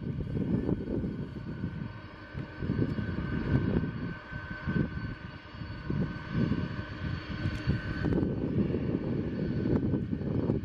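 Boeing 747-400's four jet engines running at taxi power as the aircraft moves along the runway: a low rumble that swells and dips, with a steady high whine over it.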